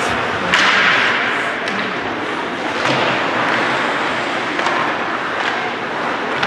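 Ice hockey being played on a rink: steady scraping of skates on the ice, with several short, sharp knocks of sticks, puck and boards.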